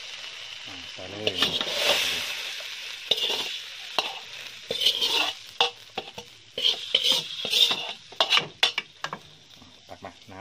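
A spatula scraping fried chili curry paste out of a metal wok into a pot: repeated irregular scrapes and clinks of metal on metal, with the paste sizzling.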